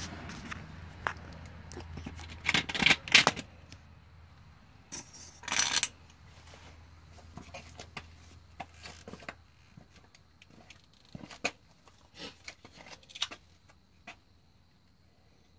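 Scattered clicks, scrapes and rattles as a truck cab is jacked back down onto its new body mounts, with two louder rustling bursts in the first six seconds. A low steady hum fades out about halfway through.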